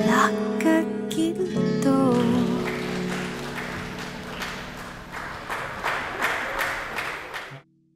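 Love song with singing and acoustic guitar ending about two seconds in, followed by applause over the music's fading last chord, cutting off suddenly near the end.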